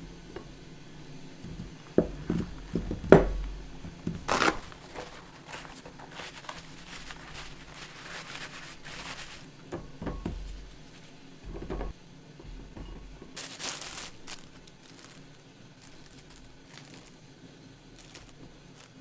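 Kitchen paper towels rustling and crumpling as washed strawberries are laid on them and patted dry, with a few sharp knocks on the countertop, the loudest about three seconds in, and a couple of duller thuds later.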